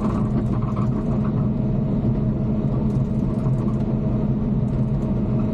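Bulldozer's diesel engine running steadily under load, an even hum with no change in pitch.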